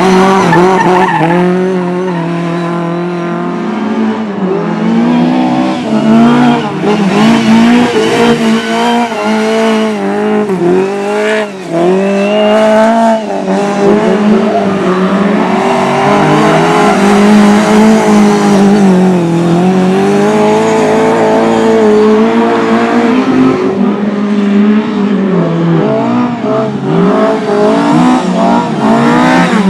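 Several speedway motorcycles racing on a cinder track, their single-cylinder engines revving hard and rising and falling in pitch together every few seconds as they accelerate out of the bends and shut off into them.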